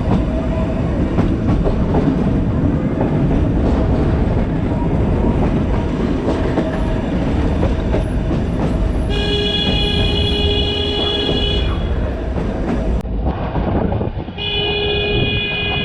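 Nilgiri Mountain Railway train running along the track with steady rumble and wheel clatter. The locomotive sounds its horn, a long blast about nine seconds in and a shorter one near the end.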